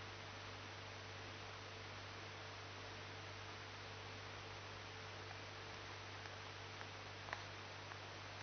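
Steady low electrical hum with a faint hiss, and one small click about seven seconds in.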